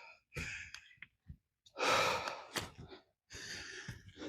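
A man breathing hard from exertion while climbing a steep hill: three heavy breaths in and out, the middle one loudest.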